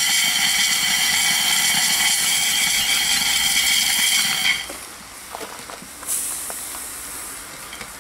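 Steam hissing steadily from a 2-inch scale live-steam Allchin traction engine, cutting off suddenly about four and a half seconds in as a valve on top of the engine is turned. A few faint clicks from the controls follow.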